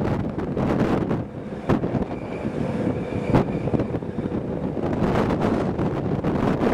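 Wind buffeting the microphone at the open window of a moving Rhaetian Railway train, over the train's steady running noise on the rails. Two sharp clicks stand out, about a second and a half apart.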